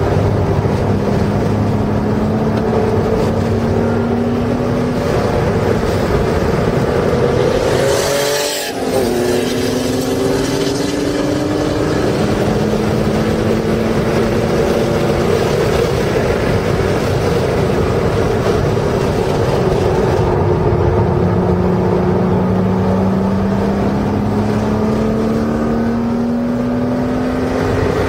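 Porsche race car engine heard from inside the cabin under hard acceleration on track, its pitch climbing through the revs. There is a quick upshift about eight seconds in, and it pulls up through the revs again later on.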